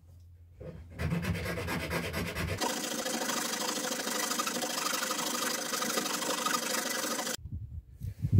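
A hand file scraping across the edge of a 3D-printed plastic throat plate, filing it down to level a height difference between the two printed pieces. It starts with quick rasping strokes, runs on as a steady scraping and stops abruptly near the end.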